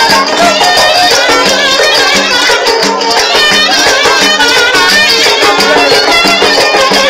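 Turkish folk dance tune led by a violin, with a low accompaniment note repeating about twice a second underneath the melody.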